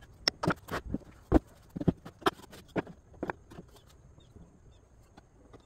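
Light knocks and clacks of wooden frame pieces, spacers and clamps being handled during glue-up, coming thick and irregular for about three seconds and then thinning out. Faint bird chirps are heard near the end.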